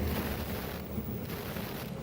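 Steady low rumble of a train running past, with no horn or clear wheel rhythm.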